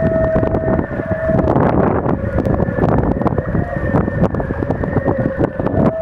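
Wind singing in the standing rigging (shrouds) of yachts hauled out ashore: several steady whistling tones held over gusty wind buffeting the microphone. The loudest, higher tone drops out about a second and a half in, and a lower tone carries on.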